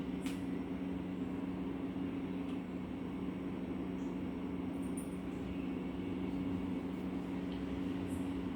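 Steady low machine hum with two constant tones over a continuous hiss, with a few faint light clicks.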